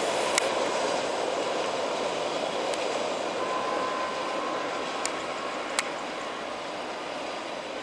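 A train rolling past and moving away: a steady rushing rumble of wheels on rails that slowly fades, with a few sharp clicks.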